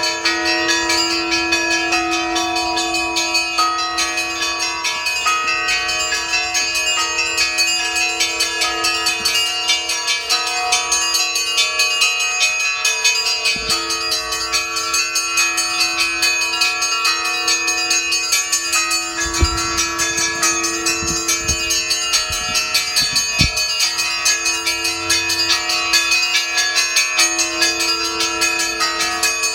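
Russian Orthodox church bells pealing: many smaller bells struck in quick, dense rhythm over the long ringing of larger, deeper bells. A few low thumps come a little past the middle.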